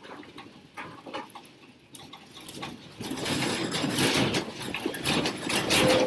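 Classroom furniture and fittings rattling and clattering as an earthquake shakes the room. Scattered quiet knocks grow about three seconds in into a dense, steady rattle.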